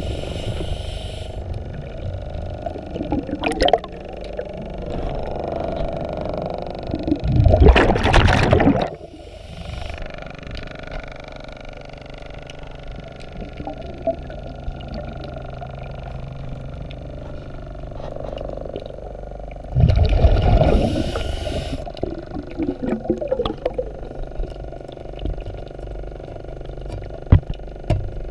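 Underwater sound of a diver breathing through a regulator: three loud rushes of exhaled bubbles, each a second or so long, at the start, around eight seconds in and around twenty seconds in. A low rumble of water with faint crackles fills the gaps between them.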